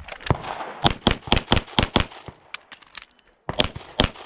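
A semi-automatic pistol firing a fast string of shots, about four to five a second, with a brief pause a little after three seconds in before the firing picks up again.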